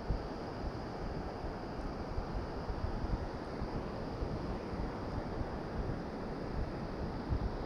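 Wind buffeting the camera microphone over a steady wash of sea water.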